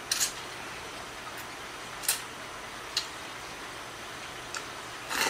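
A person slurping chilled ramen noodles (hiyashi chuka) up from a bowl with chopsticks: a few short, sharp slurps spread through, the longest near the end.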